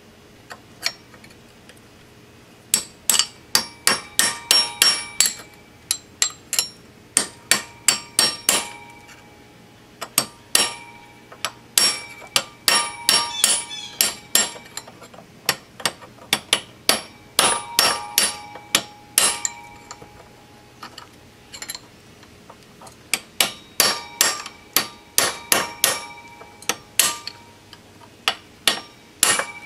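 Hammer striking a steel driveshaft yoke to knock out a universal-joint bearing cap. The blows come in quick runs of sharp, ringing metal hits, several a second, with short pauses between runs.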